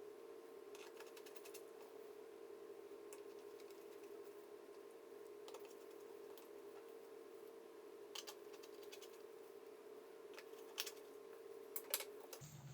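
Scattered light clicks and taps, a few at a time, over a steady faint hum. The loudest clicks come near the end.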